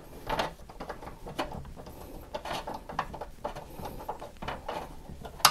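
Small irregular metal clicks and ticks of a screw being turned with an iFixit hand screwdriver into a PC case bracket, with one sharper click near the end.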